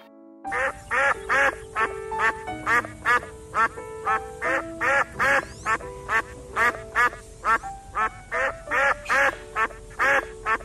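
A ruddy shelduck calling over and over, about two to three short quacking calls a second, over background music.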